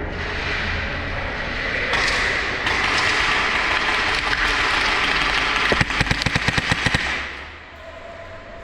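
A rapid burst of airsoft gunfire, about a dozen sharp shots in just over a second, near the end, over a steady rushing noise that stops right after the burst.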